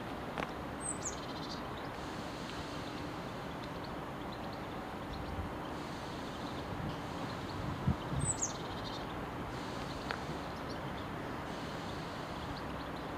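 A bird gives a short, high call falling in pitch about a second in, and again about eight seconds in. Under it is a steady background rumble, with a few soft low thumps just before the second call.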